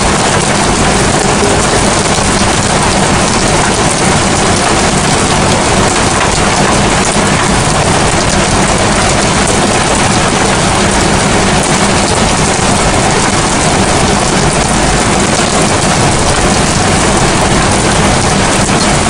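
Heavy rain falling steadily, a loud, even hiss with no breaks or separate claps.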